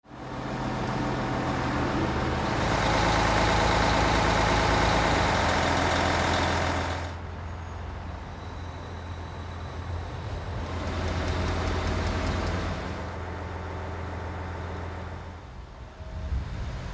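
Mobile crane truck's diesel engine running with a steady low hum. It is much louder for the first seven seconds and again for a couple of seconds later on.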